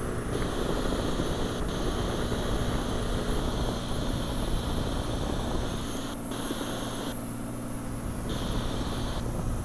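Cirrus SR20's engine and propeller droning steadily in the cabin at about 75% power, with a higher hiss that cuts in and out several times.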